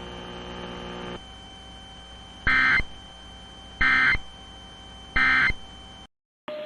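Three short Emergency Alert System end-of-message data bursts (SAME digital tones), each about a third of a second and about a second apart, signalling the end of the warning. A steady electrical hum sits under them and drops away about a second in.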